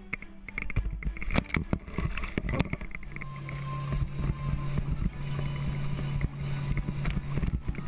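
Water splashing and knocking against the microphone as a wakesurfer is pulled up behind a towboat, then from about three seconds in the boat's engine running with a steady drone under the rushing water.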